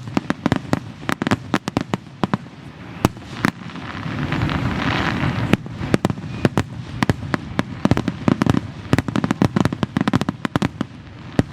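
Aerial fireworks display: rapid overlapping bangs, several a second, with swells of crackling and low rumble between them.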